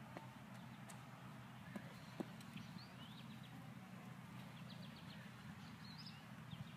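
Faint garden background: small birds giving short chirps now and then over a low steady rumble, with a few soft clicks.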